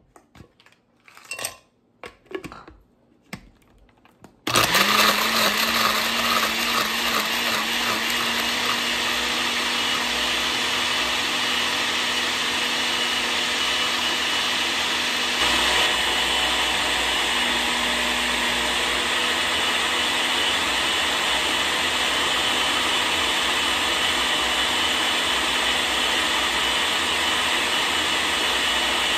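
A few short knocks as ice is tipped into a countertop blender jar, then about four seconds in the blender motor starts and runs steadily, crushing the ice into a thick green smoothie made without added water.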